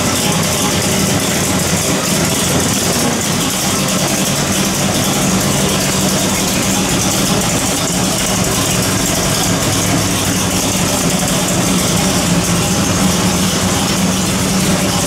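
632 cubic-inch big-block V8 marine engine running steadily at idle on an engine dyno, heard close up with no revving.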